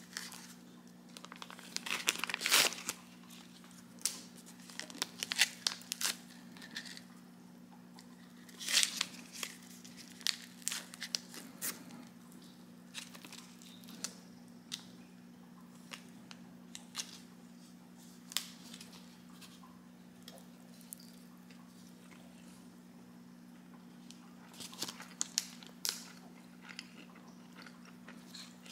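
Plastic film wrapper of an instant onigiri crinkling and crackling in irregular bursts as it is peeled back from the rice, over a faint steady low hum.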